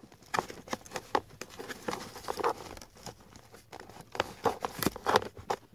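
Plastic glove-compartment stopper tab being worked into its hole in the dashboard: a run of irregular small clicks, scrapes and rustles of plastic rubbing on plastic and rubber.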